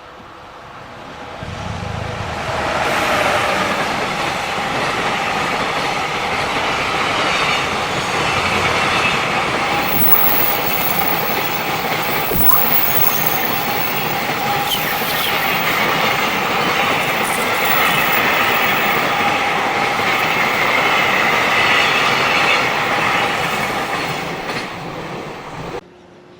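A JR Freight train passing close by, its wagons' wheels running steadily on the rails. The sound builds over the first few seconds, holds loud, then cuts off abruptly near the end.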